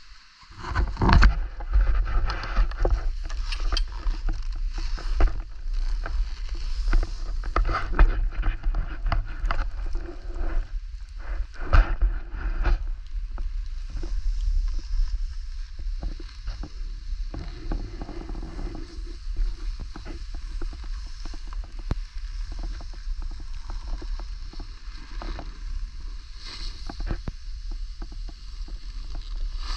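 Sliding down a powdery ski run: edges hissing and scraping through snow in a steady rush, broken by sharper scrapes at the turns, with wind rumbling on the microphone. It starts suddenly about a second in.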